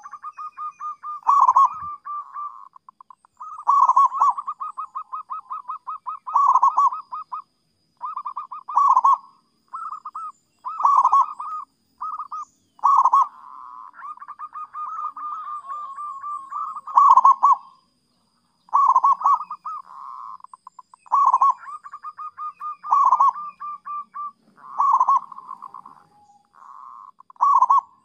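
Zebra dove (perkutut) cooing: phrase after phrase of fast rolling staccato coos with louder accented notes, repeated about every two seconds.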